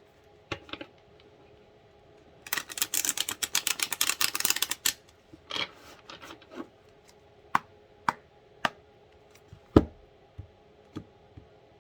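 A deck of tarot cards being shuffled: a rapid run of card flicks lasting about two seconds, followed by a scatter of single sharp taps.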